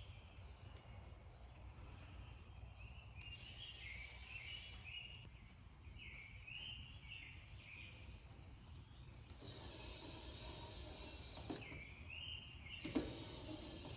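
Songbirds outside chirping in short repeated phrases over a low steady hum, with a few spells of soft hiss.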